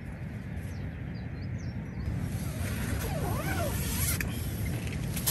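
A tent door zip being pulled shut, a rasping run lasting about two seconds in the second half, ending in a small click. It sits over a steady low rumble.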